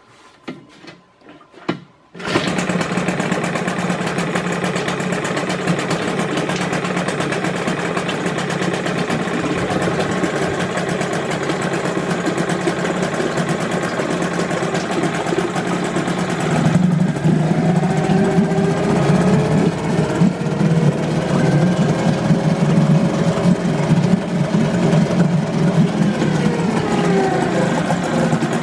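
A 1989 Mariner 4HP two-stroke outboard motor, never run since new, starting about two seconds in after a few brief sounds and then running steadily. It gets louder about two-thirds of the way through.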